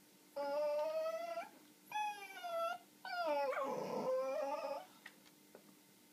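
Small dog whining in three drawn-out cries, each about a second long. The pitch wavers, and the last cry is the longest, turning rough in the middle.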